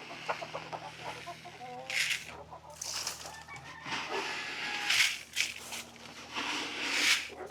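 Hens clucking, with about four louder scuffing or rustling noises through the middle and later part.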